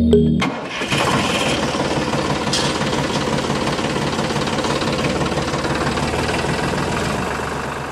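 Tractor engine running with a fast, steady knocking beat. It starts about half a second in as the music stops and fades away near the end.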